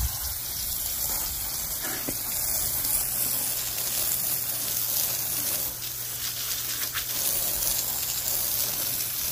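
A garden hose spray nozzle on its jet setting sends a steady, hissing stream of water against a riding lawn mower's tyre and deck.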